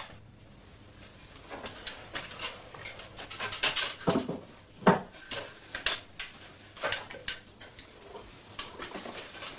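Objects such as tins and crockery being handled and set down: a string of irregular clinks and knocks, the two loudest about four and five seconds in.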